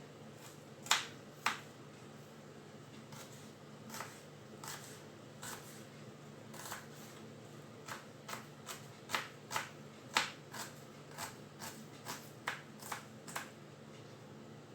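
Kitchen knife striking a cutting board while chopping onion: irregular sharp knocks, two loud ones about a second in, then a steadier run of two to three a second in the second half that stops shortly before the end.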